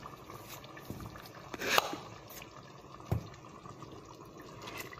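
Thick tomato and vegetable sauce simmering and bubbling in a stainless steel pot while a silicone spatula stirs it, with small wet clicks and drips. A louder scrape comes about one and a half seconds in, and a short knock about three seconds in.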